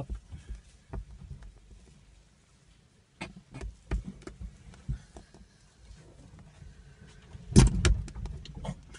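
Scattered knocks, scuffs and thumps of baboons moving about on a car's bonnet, heard from inside the car, with a louder cluster of thumps near the end.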